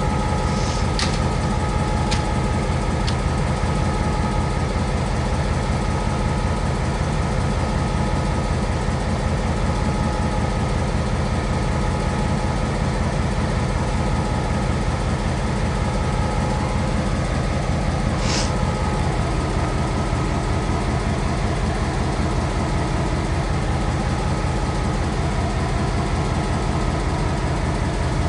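Diesel-electric freight locomotives idling at a standstill: a steady, low, pulsing engine rumble with a faint steady whine over it. A short burst of noise cuts across it about two-thirds of the way through.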